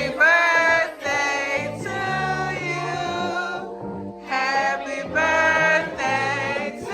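Music with several singing voices in phrases over sustained low bass notes.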